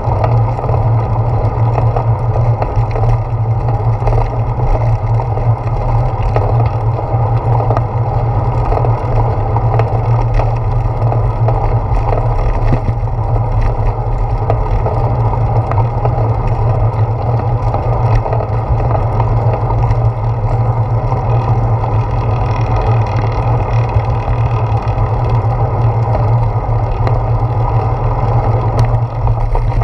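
Steady rumble of a bicycle rolling along a paved path, its ride noise carried up through a handlebar-mounted GoPro Hero 4 action camera.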